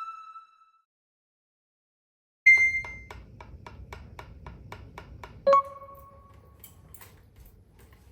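A short ringing ping, then a run of evenly spaced clicks, about four a second, for roughly three seconds, and a second, lower ringing ping.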